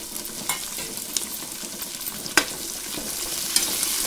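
Onions, green chillies, whole spices and freshly added mint and coriander leaves sizzling in hot oil in a pressure cooker while a metal spoon stirs them, scraping and knocking against the pot a few times. The sizzle gets louder near the end.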